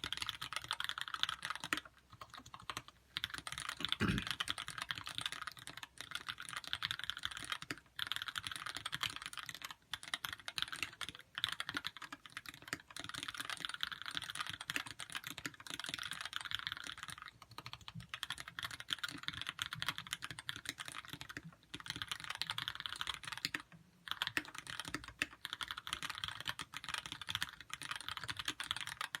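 Continuous typing on a Lyn Dolphin v2 custom mechanical keyboard with Gateron Yellow linear switches: quick runs of keystrokes broken by short pauses every couple of seconds. A single low thump about four seconds in.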